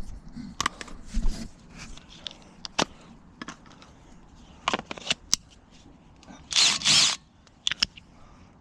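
Irregular metallic clicks and knocks of hand tools on a stuck brake rotor, with one louder rushing noise lasting about half a second near the end.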